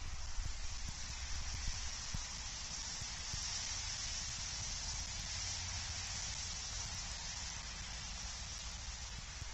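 Steady hiss of wind-driven snow on an outdoor nest-cam microphone, over a constant low wind rumble, with a few soft knocks in the first couple of seconds.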